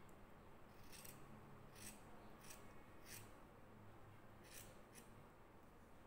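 Faint snips of small scissors cutting through the edges of a layered fabric booklet, about six short cuts at uneven intervals.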